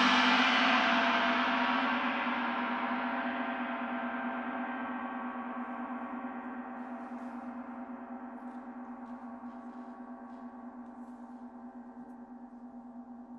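A large gong, struck once just before, ringing on and fading slowly and evenly; its upper overtones die away first while a low hum lasts longest.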